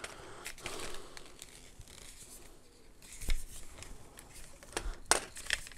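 Quiet handling noises of unpacked items and paperwork: faint paper rustling with a few light clicks and knocks, the loudest about three seconds in.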